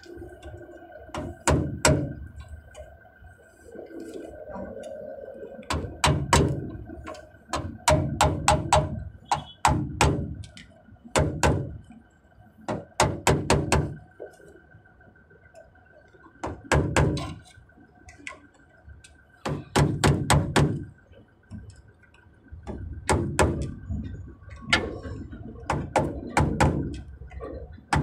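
Sharp metal knocks and taps in irregular bursts of several quick strikes, with short pauses between: a hand tool striking the metal air-line fittings under a truck, as in hammering a fitting into place.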